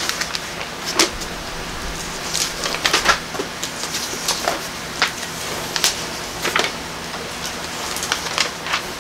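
Bible pages being turned by hand: irregular papery flicks and rustles, the sharpest about a second in and around three seconds in.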